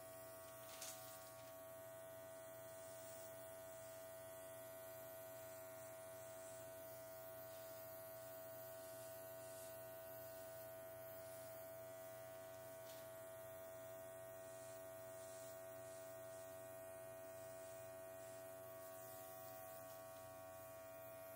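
Small makeup airbrush compressor running with a faint, steady electric hum, held at one even pitch.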